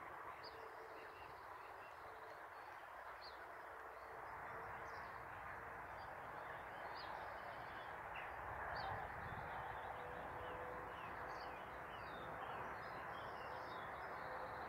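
Steady hum of distant road traffic passing on a busy ring road, slowly growing louder from about four seconds in. Small birds chirp over it in many short calls.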